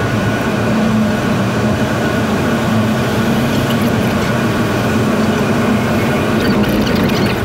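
Steady road and tyre noise inside a car's cabin at highway speed in a tunnel, with a low, even hum underneath.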